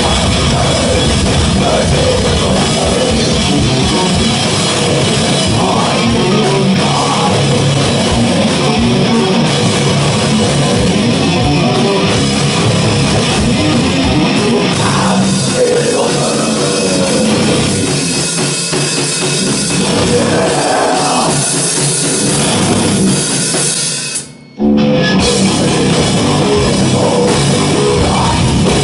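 Live extreme metal band playing: heavily distorted electric guitar over a drum kit. The sound drops out for a split second about three-quarters of the way through, then comes straight back in.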